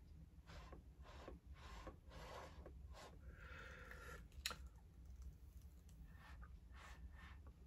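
Faint short puffs of breath blown through a drinking straw to push wet pour paint across the canvas, about two a second, with one longer blow a little after three seconds and a single sharp click about four and a half seconds in.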